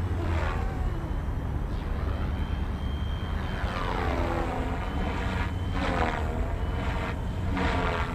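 FlyWing FW450 V2 electric RC helicopter's rotors and motor whining as it flies 3D manoeuvres. The pitch rises and falls and the sound swells several times as it swoops about, over a steady low rumble.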